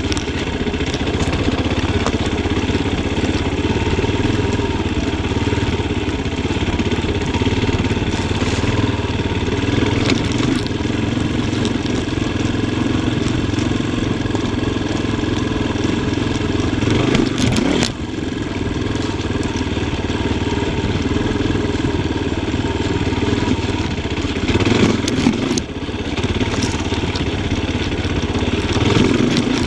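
Yamaha Tricker XG250's single-cylinder four-stroke engine running steadily under a rider, with the throttle easing off briefly about two-thirds of the way through and again near the end. Sharp clattering knocks come a few times around those moments.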